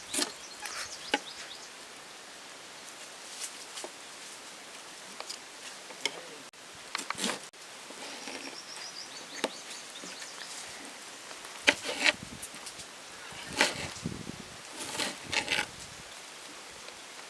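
Knife cutting tomatoes on a plastic cutting board: irregular sharp taps and clicks as the blade goes through and meets the board, sometimes in quick pairs, a few seconds apart.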